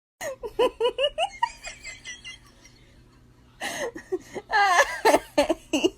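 Laughing: a quick run of about six pitched bursts, fainter higher giggles after it, then a pause and a louder stretch of laughing near the end.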